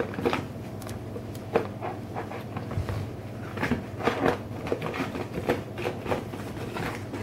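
Paper bag of dry cat food rustling and crinkling in irregular bursts as a cat noses and paws at it to get inside, over a steady low background hum.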